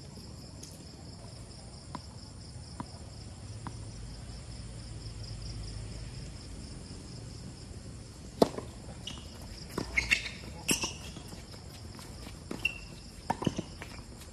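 Tennis serve: a sharp crack of racquet on ball about eight and a half seconds in, after a few soft ticks of the ball being bounced. More racquet hits and ball bounces follow as the point is played on the hard court, over the steady chirring of night insects.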